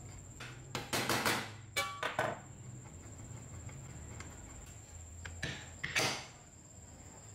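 An electric chainsaw's metal motor armature and housing being handled: a few short scraping and knocking bursts as the armature is twisted and pressed into the housing, with a brief metallic ring about two seconds in.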